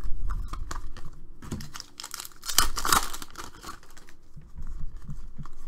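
Hands handling trading cards and plastic card sleeves: a run of rustling and light clicks, louder for a moment about two to three seconds in.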